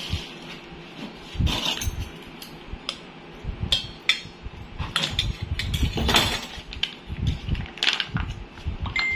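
Metal measuring spoon clinking and knocking against a stainless steel mixing bowl, a dozen or so irregular clinks with some handling bumps, as coconut milk is measured out over the chicken.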